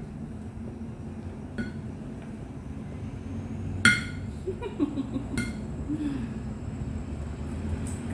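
Tableware clinking during a meal: three sharp ringing clinks, the middle one loudest, over a steady low background rumble.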